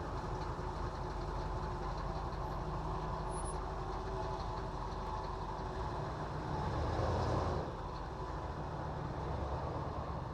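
A vehicle engine running steadily with a low hum, swelling louder for about a second around seven seconds in, as a passing vehicle would.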